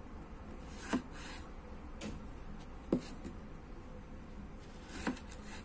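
Kitchen knife slicing through fresh strawberries and knocking on a wooden cutting board: four light knocks, a second or two apart.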